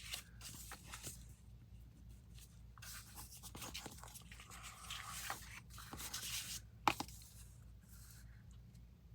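Graph paper being handled at a desk: soft rustling and scraping in several short spells, with a sharp tap near seven seconds in.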